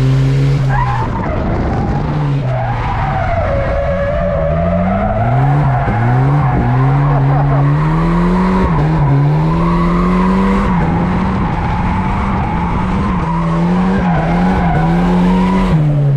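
Volvo 940 Turbo's turbocharged four-cylinder engine revving up and down on the throttle through a drift, with the tyres squealing over it from a couple of seconds in; the engine drops off right at the end.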